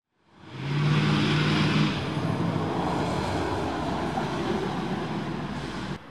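Road vehicle sound on a wet street: an engine hum with tyre hiss. It fades in at the start, is loudest in the first two seconds, holds steady, then cuts off abruptly near the end.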